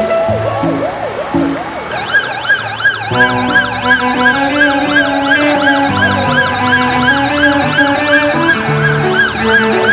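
A siren yelping about three times a second, jumping up in pitch about two seconds in, over music with a stepped bass line.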